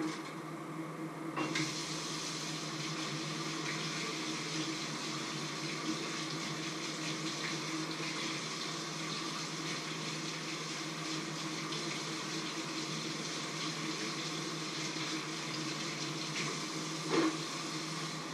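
Tap water running into a stainless steel sink, starting suddenly about a second and a half in, over a steady electrical hum. A single knock near the end.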